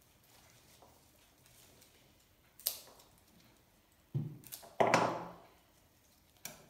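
Florist's snips cutting flower stems, with stems being handled. There is a sharp snip a little over two and a half seconds in, a knock and then a loud crack about four to five seconds in that fades away, and another click near the end.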